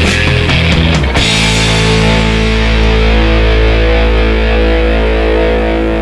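Loud rock music with distorted electric guitar: fast, rhythmic playing for about the first second, then one long held chord that starts to fade near the end.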